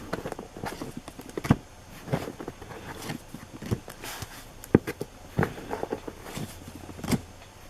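Irregular light knocks and taps, about one or two a second, as of card packs and cards being handled on a tabletop.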